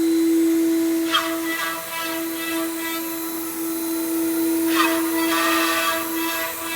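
Woodworking CNC router spindle running with a steady high whine, its bit cutting wood, with brief louder swishes of cutting noise about a second in and again near five seconds.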